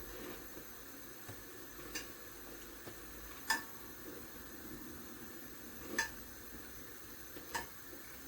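Kitchen utensil knocking and clinking against a cooking pot, a few sharp knocks a second or two apart, over a faint steady background hiss.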